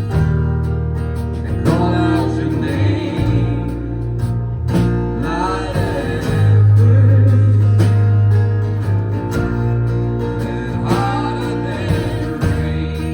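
Live band music in a country-rock style: guitars and a bass line playing together.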